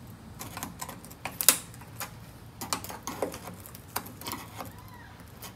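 Scattered small clicks and taps of hands working at a car's clipped-in body trim piece, feeling how it is fastened. The sharpest click comes about a second and a half in.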